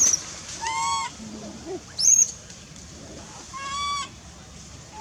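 Baby monkey crying in separate calls: two high shrill squeals, one at the start and one about two seconds in, which is the loudest, and two lower arched wails, about a second in and near four seconds. These are distress cries of a hungry infant calling for its mother.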